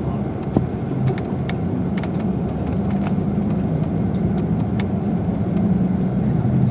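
Coach engine running and road noise heard from inside the passenger cabin as it drives along, a steady low hum with a few light clicks of rattling.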